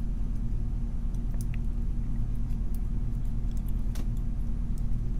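Steady low electrical hum, with a few faint light clicks of small metal lock parts being handled.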